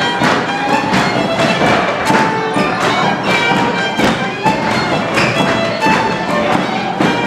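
Hungarian folk dance music with a steady, driving beat and a fiddle or bagpipe-like melody, with the thud of dancers' feet on the studio floor.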